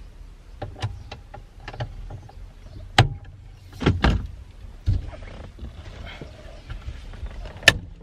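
A breaker bar and socket on the 19 mm steering-wheel bolt of a Nissan 350Z. It makes scattered light metallic clicks and knocks, with sharper clacks about three, four and five seconds in and a loud one near the end, as the bolt is broken loose.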